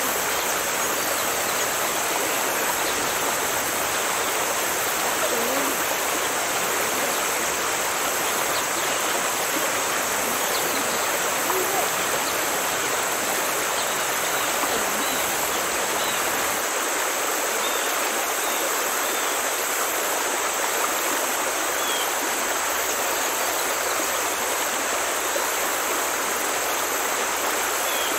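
Steady rushing water, like a stream or waterfall, at an even level, with faint short high chirps now and then.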